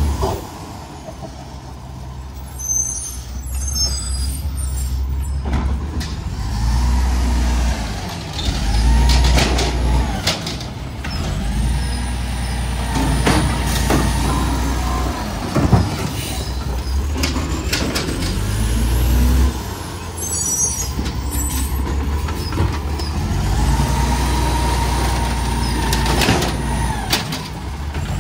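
Diesel garbage truck revving its engine to drive the hydraulic packer as it compacts a heavy load of yard waste; the engine swells and eases several times, with rising and falling hydraulic whines, a few clunks and brief air hisses.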